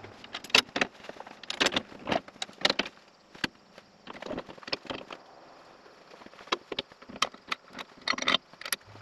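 Irregular metallic clanks, knocks and rattles of farm equipment being handled, with a quieter stretch in the middle and a louder cluster near the end.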